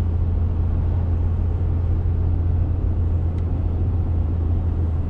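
Pickup truck carrying a camper cruising on a highway, heard from inside the cab: a steady low drone of engine and road noise.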